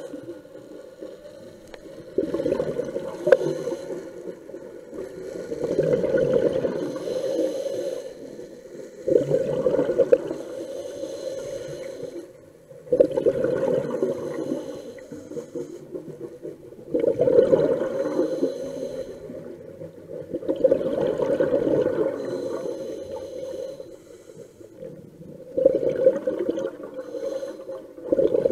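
Scuba diver breathing through a regulator underwater: a rush of exhaled bubbles roughly every four seconds, each starting suddenly and fading away before the next breath.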